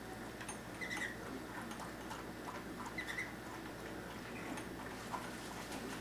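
Cockatiel giving two short chirps, about a second apart from the start and again about three seconds in, over scattered small clicks and crunches from a dog eating out of a plastic bowl.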